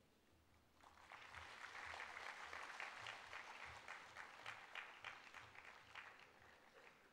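Audience applause, fairly faint. It starts about a second in, holds steady, and tapers off near the end.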